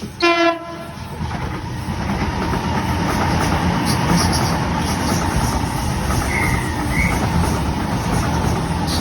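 A train's horn sounds one short blast right at the start. The train then runs past with a steady rumble and clatter of wheels on the track that builds over the next two seconds.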